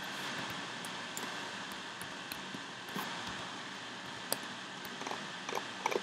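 Scattered sharp clicks of a computer keyboard and mouse being operated, irregular and a few per second, over a steady background hiss.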